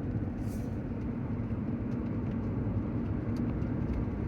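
Car cabin sound while driving: a steady low engine and road-noise rumble.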